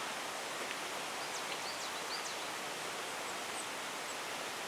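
Steady outdoor background hiss in woodland, with a few faint, short high bird chirps in the first half.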